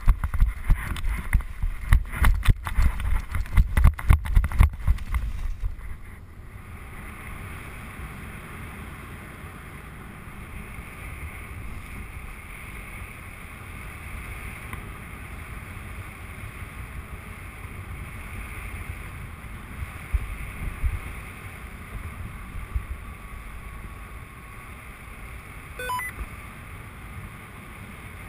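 Paraglider launch: running footsteps and heavy wind buffeting on the microphone, with irregular thumps. These stop about six seconds in as the pilot lifts off, leaving a steady rush of air past the microphone in flight. A short electronic beep sounds near the end.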